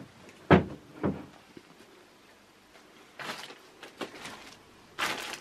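Two dull knocks about half a second apart, then two short bursts of rustling.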